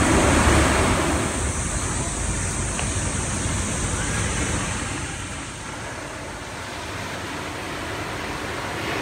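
Small waves washing onto a sandy beach: a steady rush of surf, loudest in the first second or two and softer from about five seconds on.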